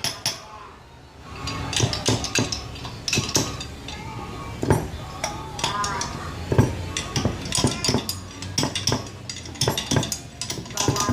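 Irregular metallic clinks and knocks, like hard objects being handled and set down.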